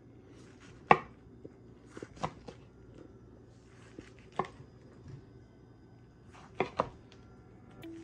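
A long knife slicing through a sushi roll and knocking down onto a plastic cutting board with each cut. There are about six sharp knocks at irregular intervals, the loudest about a second in.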